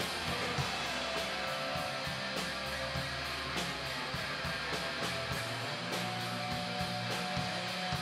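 Background music: strummed guitar over a steady beat.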